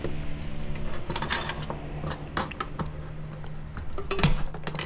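Hand tools clicking and clinking against a metal electronics chassis in irregular taps and scrapes while parts are worked loose, with a quick flurry of sharper clicks near the end.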